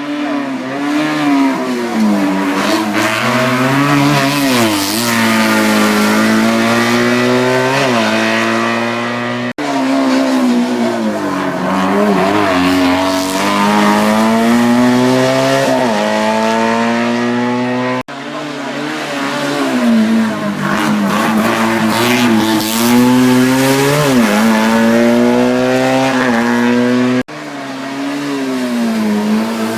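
Racing car engine at high revs, its pitch climbing and dropping again and again as it accelerates, shifts gear and brakes for corners. The sound breaks off abruptly three times, about a third, two thirds and nine tenths of the way through, as one run cuts to the next.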